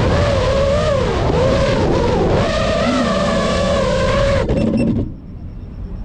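FPV racing quadcopter's motors whining, their pitch rising and falling with the throttle, then cutting off suddenly about five seconds in as the drone lands and disarms. Quiet outdoor background is left after the cut.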